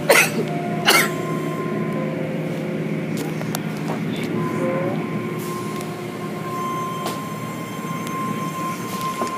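Automatic tunnel car wash machinery heard from inside a car going through it: a steady mechanical rumble and hum of pumps, motors and spraying water. Two loud sharp hits in the first second, and a steady high whine comes in about halfway.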